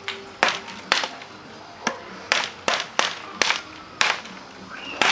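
Bolo machete of truck spring steel chopping into tree branches: about eight sharp strikes of the blade into wood, roughly two a second at an uneven pace.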